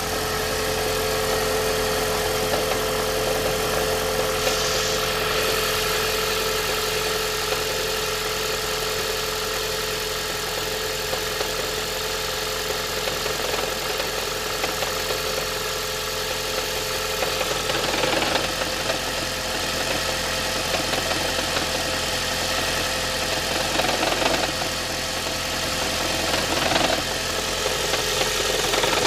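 Toyota Prius ZVW30's 1.8-litre four-cylinder petrol engine running steadily after a cold start, making an abnormal noise and vibration, with a few brief louder, rougher moments in the second half. The cause is a malfunctioning EGR valve gummed up with sludge from repeated short drives.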